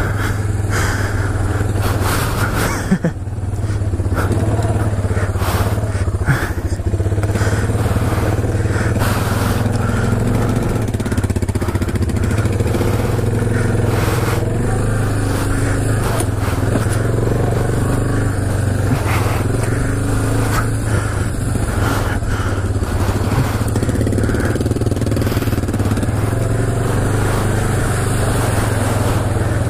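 Honda FourTrax ATV's single-cylinder engine running steadily as the quad is ridden over a rough dirt trail, with scattered knocks and rattles from the bumps.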